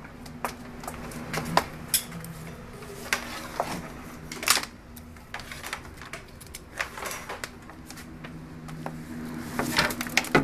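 Scattered sharp clicks and knocks at an irregular pace, with a steady low hum underneath.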